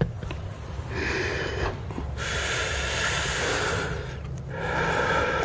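A person breathing out heavily close to a clip-on microphone: three long, breathy hisses, the middle one the loudest. A low steady hum runs underneath.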